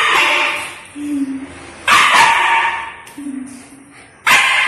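Siberian husky puppy barking in play: three loud, harsh bursts about two seconds apart, with short low-pitched sounds between them.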